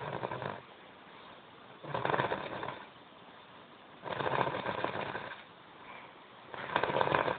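Snoring: loud, rattling snores coming about every two to two and a half seconds, three of them after the tail of one at the start, with quieter breathing between.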